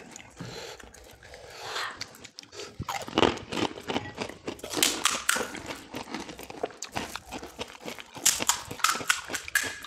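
Crisp pani puri (golgappa) shells crackling and crunching as they are cracked open with fingers and bitten, in a run of sharp crunches that comes thickest about three to five seconds in and again near the end.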